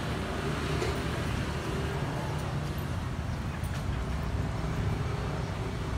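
Street traffic: motor vehicles running by with a steady low engine drone.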